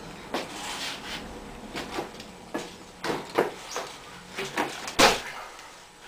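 Knocks and clattering from a BMX bike being ridden in a trick demonstration, a dozen or so uneven hits with the loudest about five seconds in.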